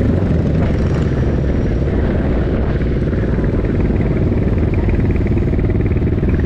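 Motorcycle engine running steadily as the bike is ridden.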